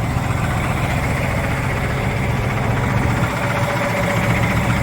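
Large diesel engine idling steadily with an even low hum.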